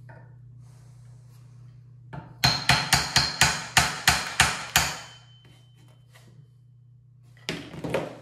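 Small hammer tapping a punch to drive a stuck, rusted pin out of a Spanish M1916 Mauser rifle part: a run of about ten sharp taps at roughly four a second, then a few lighter knocks near the end. A steady low hum runs underneath.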